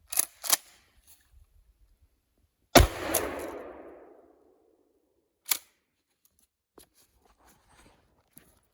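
A single 12-gauge shotgun blast firing buckshot, about three seconds in, echoing and fading over about a second and a half. A few small clicks come before and after it.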